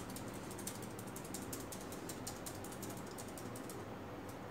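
Laptop keys clicking in a quick, irregular run of light taps, which stops a little before the end.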